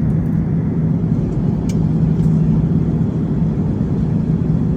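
Steady low cabin noise of an airliner in flight on descent: engine and airflow rumble heard from inside the passenger cabin.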